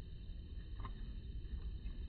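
Low, steady outdoor background rumble, with one faint short chirp-like sound just under a second in.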